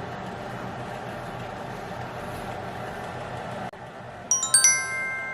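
A steady soft rustling noise that cuts off abruptly a little over three seconds in. Soon after, a bright twinkling chime sound effect sounds, a quick run of high tones that leaves several notes ringing on.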